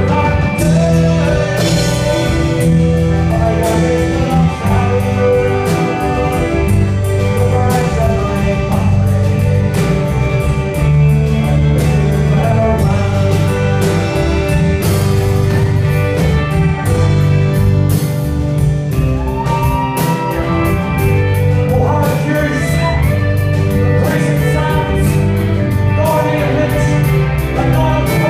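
Live rock band playing an Irish-style song on electric guitars, fiddle, bass and drums, with a steady drum beat.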